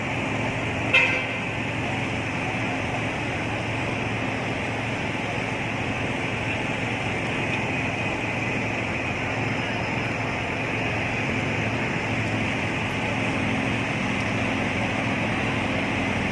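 Steady city street noise, mostly traffic, with one short, sharp toot about a second in.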